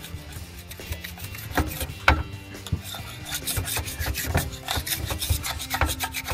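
Hand scraper scraping quickly in short, uneven strokes over a fifth-wheel hitch plate, rasping off old adhesive residue softened with gasoline.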